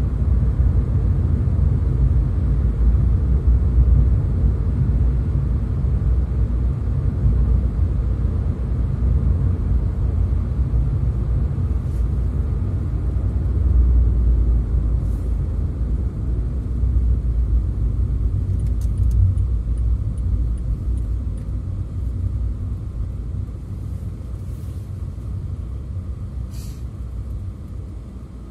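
Car driving on an expressway: a steady low rumble of tyres and engine, easing off gradually over the last few seconds.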